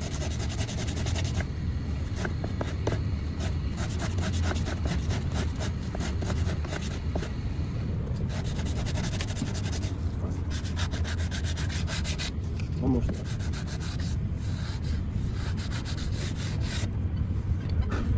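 Hand sanding block rubbed back and forth along the edge of a wooden window sash in quick, steady strokes, blending a glued-on pine Dutchman patch flush with the old wood. The strokes break off briefly about two-thirds of the way through, then resume.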